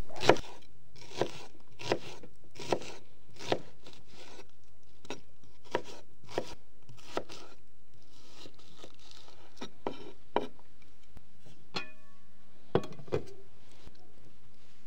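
Kitchen knife slicing half an onion on a cutting board: separate sharp chops, about one a second at first, then slower and more spread out.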